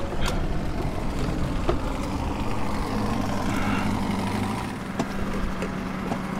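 New Mercury tiller outboard idling steadily during its break-in, with a few light clicks as it is handled.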